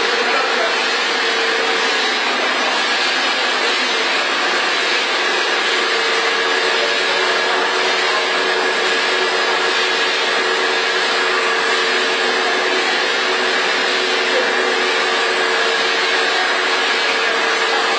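Pet-food pellet making machine (extruder) running steadily: a constant mechanical noise with a steady hum and a fainter higher whine.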